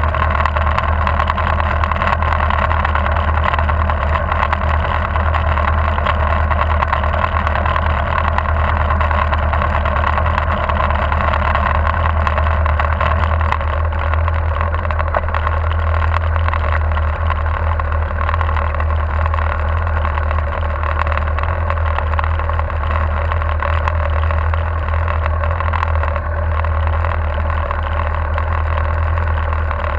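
Motorcycle engine idling steadily, heard from a camera mounted on the bike.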